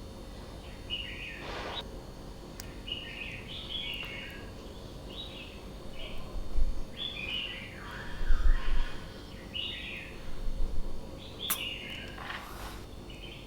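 Birds chirping in repeated short calls, with a few louder thumps in the middle.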